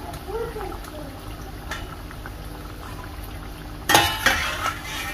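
Pakoras deep-frying in hot oil in a steel wok, bubbling steadily. About four seconds in, a metal slotted spoon clatters loudly against the pan twice.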